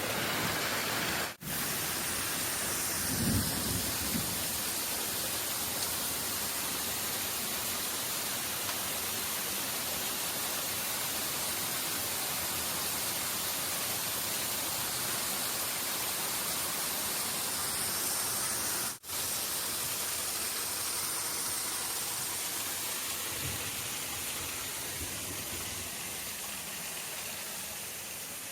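Steady rush of flowing stream water and waterfalls, an even hiss that cuts out briefly twice and fades a little near the end.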